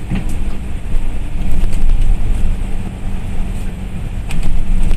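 Cabin noise of a moving KMB bus: steady engine and road rumble with a constant low hum, and a few short sharp rattles from the body.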